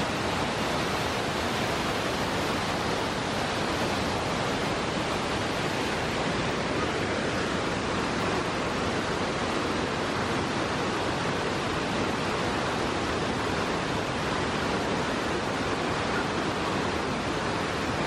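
Steady rush of a waterfall, white water pouring over wide rock ledges, an even roar at constant level with no breaks.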